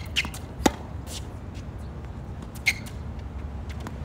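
Tennis rally on a hard court: three sharp pops of the ball off racket strings and off the court surface, about a second and then two seconds apart, over a steady low rumble.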